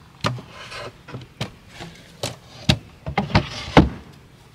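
Shingled wooden lid being lowered and settled onto a wooden pump enclosure: a run of wooden knocks and short scrapes, the loudest near the end.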